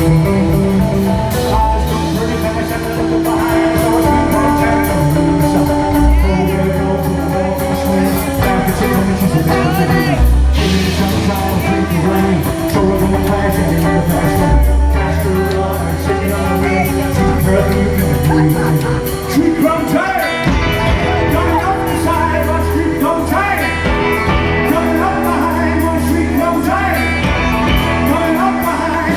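Live rockabilly band playing a song: electric guitar, bass and drums with a steady beat, and a singing voice.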